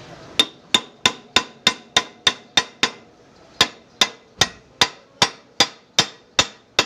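Hammer striking metal while working on a car's outer tie rod end, in sharp ringing blows about three a second: nine strikes, a short pause, then nine more.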